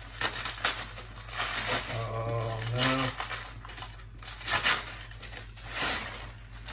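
Brown packing paper being crumpled and rustled in repeated bursts as it is pulled away from a box, with a short hum from a man's voice about two seconds in.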